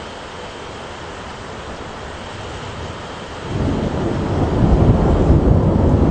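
Thunder in a steady rushing storm: about three and a half seconds in, a deep roll of thunder breaks in suddenly and keeps rumbling louder to the end.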